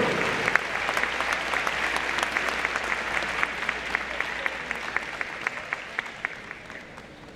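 Audience applauding, fading steadily and thinning out to scattered separate claps.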